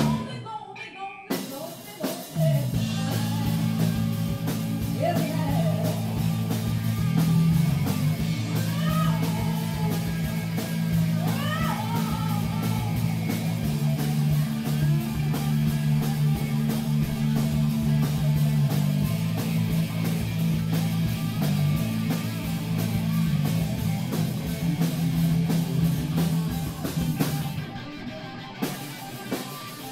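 A live rock and roll band playing: electric guitar, bass guitar and drum kit. The band drops out briefly at the start and kicks back in about two seconds in, and there are a few rising note slides in the middle.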